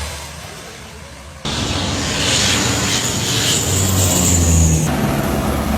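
Firefighting helicopter's turbine engine and rotor running: a low steady drone, then about a second and a half in a sudden jump to a loud rushing noise with a high steady whine, which drops away about five seconds in.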